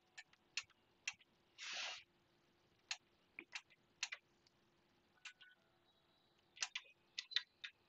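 Faint, irregular clicks of buttons being pressed on the Yamaha REV7 reverb unit's front-panel keypad, about a dozen in all and more closely spaced near the end, with a short rustle of handling about two seconds in.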